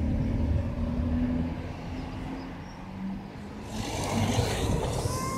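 Motor vehicle engines running in street traffic, a steady low rumble and hum that eases off midway and builds again. A short high-pitched squeal comes near the end.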